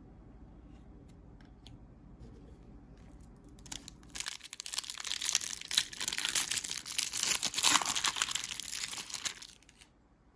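Trading-card pack wrapper being torn and crinkled by hand: a few faint clicks, then about five seconds of loud, dense crackling that stops suddenly.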